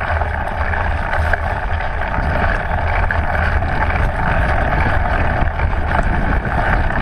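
Wind rushing over the microphone of a bike-mounted camera on a mountain bike at speed, with a heavy low rumble, plus knobby tyres rolling over dirt and dead leaves and small clicks and rattles from the bike over bumps.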